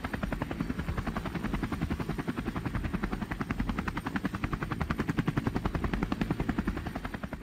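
Helicopter rotor blades beating in a rapid, even rhythm, steady throughout and starting to fade near the end.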